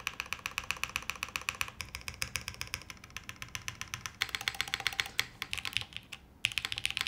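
Typing on a Martingale mechanical keyboard: plateless, top-mounted build with Gateron Summertime linear switches and GMK Foundation keycaps. A quick run of keystroke clacks, with a brief pause a little after six seconds.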